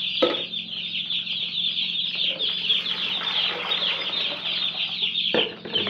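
A crowd of day-old Cobb 500 broiler chicks peeping without a break, many short, high, falling cheeps overlapping. Partway through, liquid is poured into a plastic jug with a splashing hiss that stops abruptly near the end.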